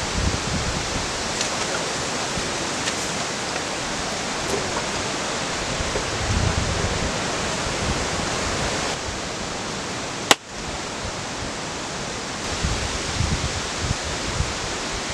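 Steady outdoor rushing noise with low gusts of wind buffeting the microphone, and a few faint clicks of dry sticks being laid. A single sharp click about ten seconds in.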